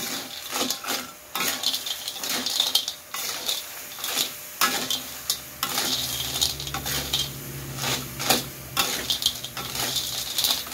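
Metal spatula scraping and clinking against a wok as siput mata merah (red-eye mangrove snails) in their shells are stir-fried in sambal, over a steady sizzle.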